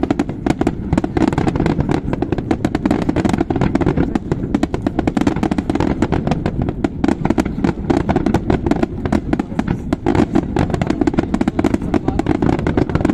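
Fireworks display with many aerial shells bursting together: a dense, unbroken run of bangs and crackles, several a second.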